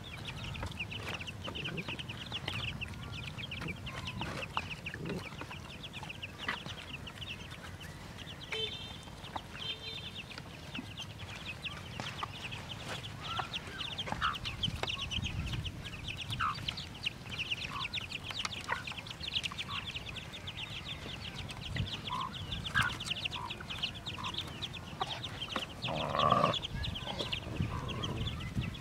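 Chicks peeping continuously in rapid high cheeps, with a few short hen clucks and one louder hen call near the end.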